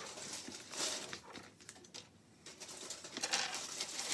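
Small plastic Lego pieces handled close to the microphone: bursts of rustling with light clicks, about a second in and again from about three seconds.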